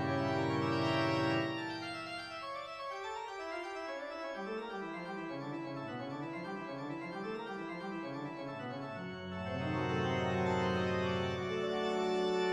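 Organ music: held chords at the start, a passage of quickly moving notes through the middle, then full held chords again near the end.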